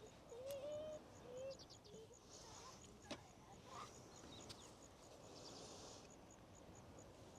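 Near silence: faint outdoor ambience with a few faint chirps and clicks.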